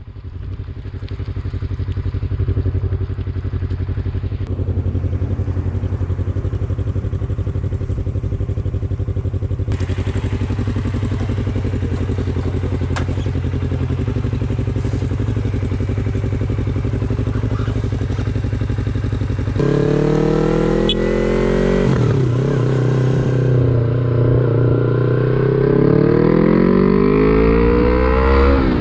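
Yamaha MT-25/MT-03 parallel-twin engine idling steadily, then about two-thirds in the bike pulls away. The engine note rises through the gears, dipping at each upshift, with another shift near the end.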